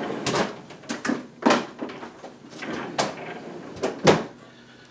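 Kitchen door or drawer being opened and shut and things handled inside it: a run of about five sharp knocks and clatters with rustling between, the last about four seconds in among the loudest.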